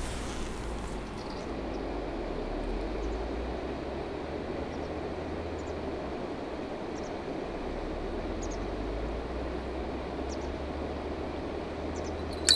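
Steady outdoor background hum with a low rumble and a few faint high ticks. Near the end a rod's bite bell suddenly jingles as a fish takes the bait.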